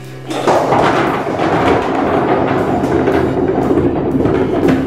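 Dozens of small rubber super balls bouncing on a wooden floorboard floor: a dense, continuous clatter of many small impacts that starts about a third of a second in.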